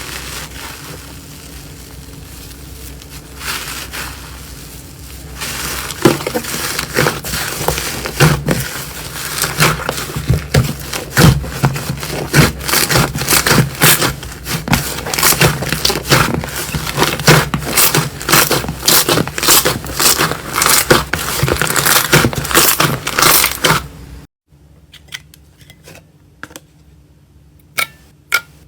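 Slime being squeezed and pressed by hand, first with a soft, squishy sound and then, from about five seconds in, a dense run of small clicks and pops. Near the end the sound drops off suddenly and is replaced by a quieter stretch with a few sharp clicks.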